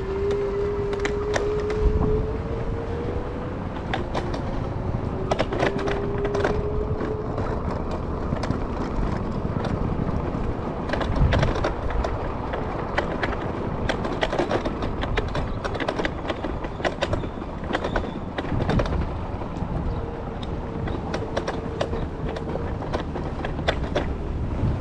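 Marti rental electric scooter being ridden over paving: the frame and wheels rattle and click over bumps against a low rumble. A faint motor whine rises a little in pitch over the first few seconds, fades, and comes back briefly near the end.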